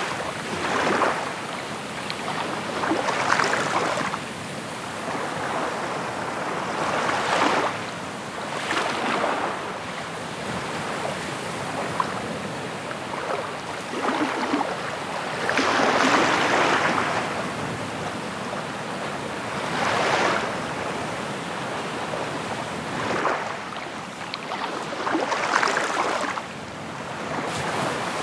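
Waves washing in on a shore, coming in irregular surges every couple of seconds, each swelling and falling away.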